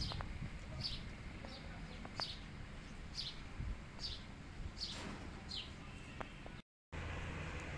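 A small bird chirping repeatedly: short, high, falling chirps about once a second over a low background hum. The sound cuts out completely for a moment near the end.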